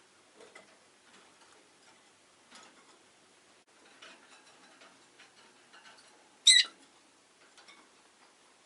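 Rosy-faced lovebird giving a single short, shrill chirp about two-thirds of the way in, the loudest sound here, amid faint scattered ticking and clicking.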